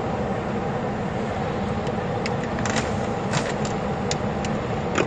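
Steady rumble of a Mi-8-type military helicopter running on the ground, its rotor turning, with a few light clicks about halfway through and near the end.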